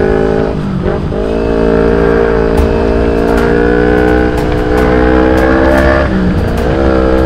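Sport motorcycle's engine pulling hard under acceleration, its pitch climbing steadily, with a brief dip in revs at a gear change about a second in and again around six seconds in.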